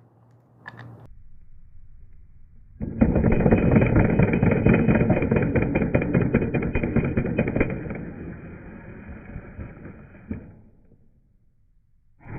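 Impact driver hammering a screw in, heard slowed down: a rapid rattle of its internal hammer striking the anvil, each strike releasing the stored spring torque into the screw. It starts suddenly about three seconds in, eases off toward the end and stops with a single sharp click.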